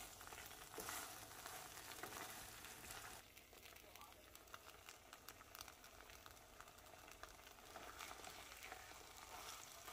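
Faint sizzle and light crackling of corn tortillas, dipped in red chile sauce, frying in oil in a pan. It drops almost to silence for a few seconds in the middle, then comes back.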